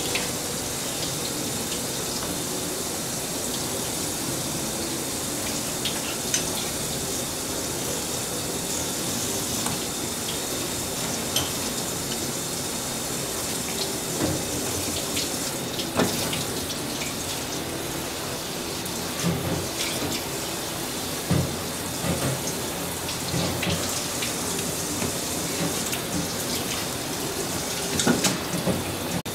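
Tap water running steadily over a cutting board, with occasional sharp knocks and scrapes of a knife filleting a sea eel.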